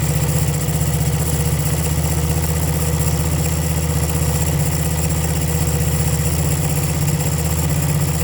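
1975 Honda CB125S single-cylinder four-stroke engine idling steadily, with a misfire that the owner puts down to the ignition points.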